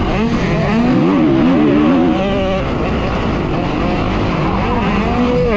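Motocross dirt bike engine revving hard, its pitch rising and falling again and again as the throttle is worked through the track.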